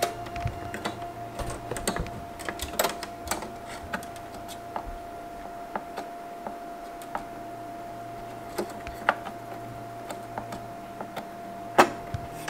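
Scattered clicks and knocks of metal and plastic parts being handled inside a Mac Pro tower while a PCI Express card is fitted, with one loud sharp click about a second before the end. A faint steady high tone runs underneath.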